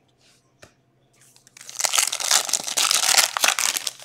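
Foil wrapper of a trading-card pack being torn open and crinkled: a dense run of crackling that starts about a second and a half in, after a single small click.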